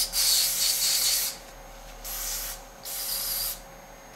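Aerosol can of spray lube hissing in three bursts (a long one at the start, then two shorter ones about two and three seconds in), sprayed onto edge finder parts to flush out grit.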